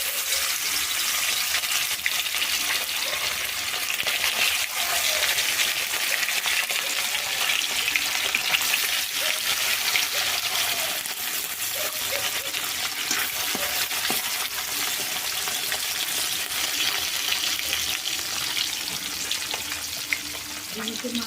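Salted, turmeric-rubbed bata fish pieces frying in hot oil in a kadai. A loud, steady sizzle starts suddenly as the fish goes into the oil, with small crackles of spitting oil throughout.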